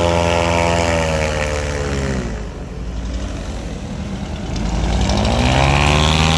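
Airboat's Chevy 350 V8 running. Its revs fall away about two seconds in, then climb back up near the end.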